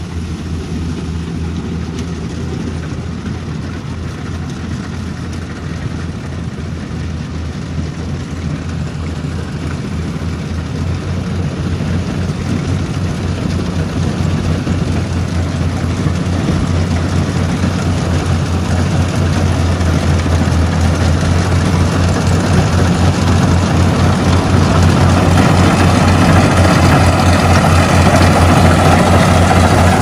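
Kubota rice combine harvester running steadily while it cuts, its diesel engine humming low and growing louder as the machine comes closer over the second half.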